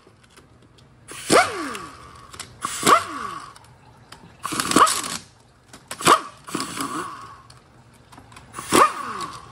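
Pneumatic impact wrench loosening transmission oil pan bolts. It runs in about six short bursts, each with a rush of air and a falling whine as the motor spins down after the trigger is released.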